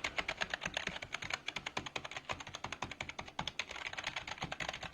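Typing on a Zebronics K35 USB keyboard: a quick, steady run of key clicks, several keystrokes a second.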